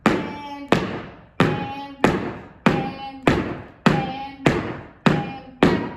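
Mexican folklórico zapateado footwork (caballitos): heeled folklórico shoes striking the floor in a front-back rock step, an even beat of about one and a half strikes a second, each strike ringing briefly.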